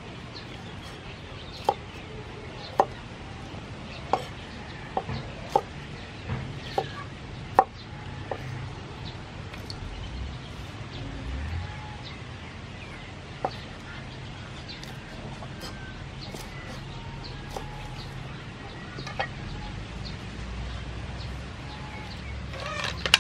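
Cleaver chopping a chili on a wooden cutting board: a run of sharp knocks in the first eight seconds, then a few single chops later. Chickens cluck now and then in the background.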